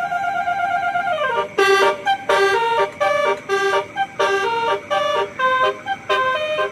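Telolet bus horn sound from the sound unit fitted to an RC model bus, playing a multi-tone tune: a held chord that slides down in pitch about a second in, then a quick run of short, stop-start horn notes at changing pitches.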